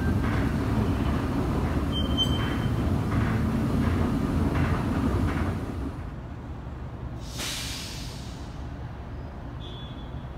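Steady low rumble in a rapid-transit station with a faint regular clatter, dropping about six seconds in to a quieter background, with a short rush of hiss about a second later.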